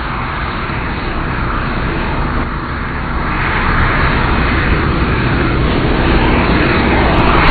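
Jet engine noise from the modified Boeing 747 Shuttle Carrier Aircraft and its four Pratt & Whitney engines: a steady rush that grows slowly louder as the aircraft draws nearer.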